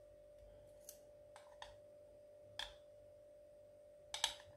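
Faint light clicks of metal spoons tapping against a glass bowl of melted chocolate while coating balls, a handful of scattered taps with the loudest couple near the end.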